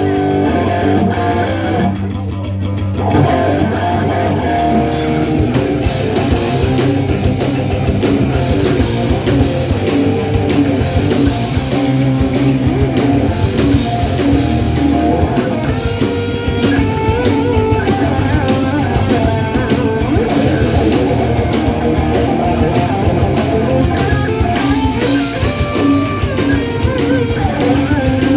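Heavy metal band playing live: distorted electric guitars over bass and drums, amplified through the stage PA.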